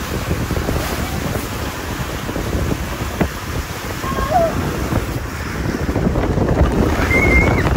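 Wind buffeting the microphone: a loud, uneven low rumble that grows stronger toward the end.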